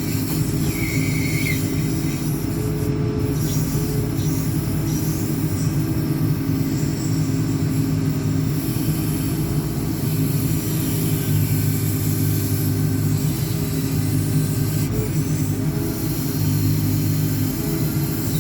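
JCB 4CX backhoe loader's diesel engine running steadily under load while the rear backhoe arm works, with a brief high-pitched whine about a second in.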